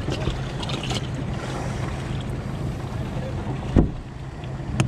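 Steady low motor hum with wind on the microphone, and one sharp thump a little under four seconds in.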